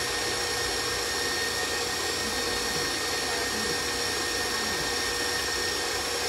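Stand mixer motor running steadily with a constant whine, whipping marshmallow icing in its steel bowl.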